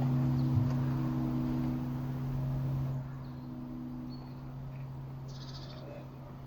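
Church bells ringing as steady low tones, which drop quieter about three seconds in and fade away.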